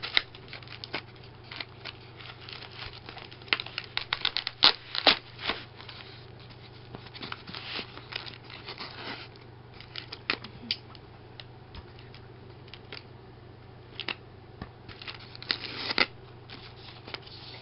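Cardboard box and packaging being handled and worked open: irregular taps, scrapes and short rustles, heaviest in bunches about four seconds in and near the end.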